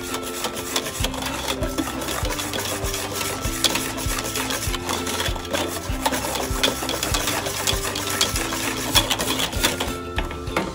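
Wire balloon whisk beating custard cream in a copper pan, the wires rubbing and clicking against the metal in a fast, rhythmic stroke as the custard cooks and thickens.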